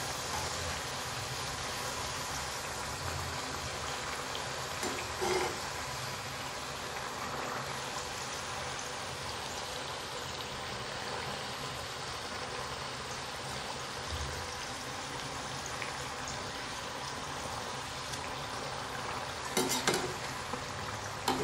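Fafda strips deep-frying in hot oil in a steel pan: a steady sizzle and bubbling. A few short knocks of a metal utensil against the pan come about five seconds in and again near the end.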